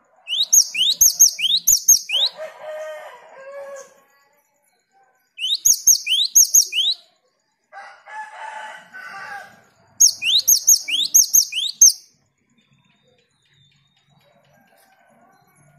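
Cinereous tit (gelatik batu) singing: three bouts of quick, high, rising whistled notes, about five to a bout, with lower chattering calls between the first bouts.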